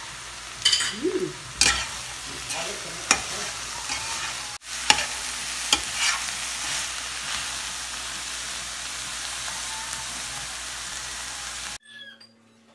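Minced meat and diced carrots sizzling in a stainless steel pot while a metal slotted spatula stirs and scrapes them, with sharp clinks of the spatula against the pot several times in the first six seconds. The sizzle cuts off abruptly near the end.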